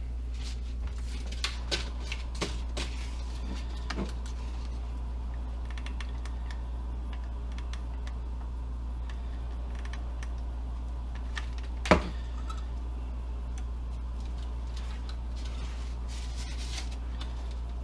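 Scattered light clicks and taps from hands handling tools and parts while building a small RC plane, with one sharp knock about twelve seconds in, over a steady low hum.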